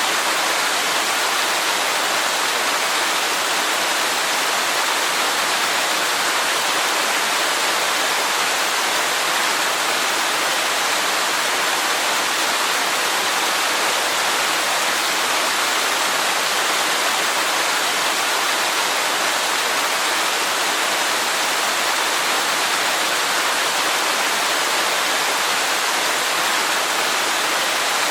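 Waterfall rushing: a steady, unchanging hiss of falling water with little deep rumble.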